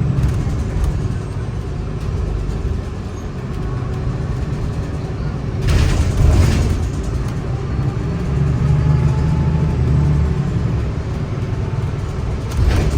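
Gillig hybrid bus heard from inside the cabin: its Cummins B6.7 diesel engine and BAE hybrid drive run with a steady low drone that swells and eases as the bus moves. About six seconds in there is a brief hissing noise.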